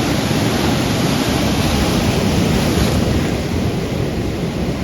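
Ocean surf washing steadily at the shore, with wind rumbling on the microphone.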